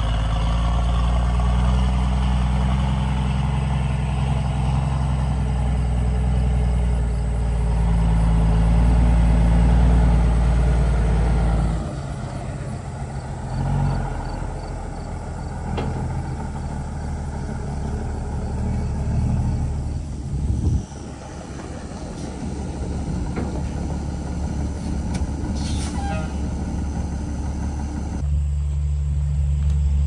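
Vintage John Deere two-cylinder tractor engine running steadily. About twelve seconds in the sound cuts to a quieter, rougher engine with a few knocks, and near the end a loud, steady engine takes over.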